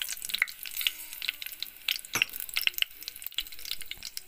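Whole spices frying in hot mustard oil in an aluminium pressure cooker: a steady sizzle with many short, sharp crackles and pops.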